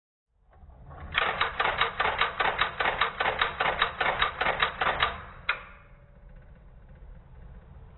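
Strowger step-by-step switch, the connector, clicking as its stepping magnet's armature and pawl pull in and drop out on each rotary-dial pulse, stepping the shaft through the tens digit of the called number. A run of about twenty sharp, even clicks at about five a second, then a single click and a faint rattle.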